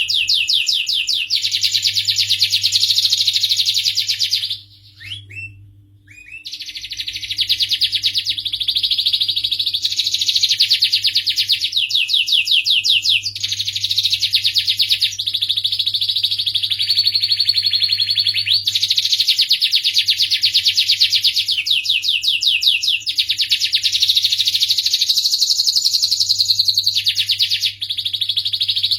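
Domestic canary singing a long run of rapid trills and rolls, breaking off briefly about five seconds in and then carrying on.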